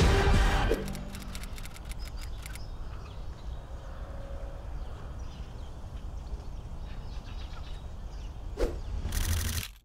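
Music stops within the first second, leaving a steady low outdoor rumble. Near the end comes a brief whoosh, then a short, loud burst of noise that cuts off suddenly.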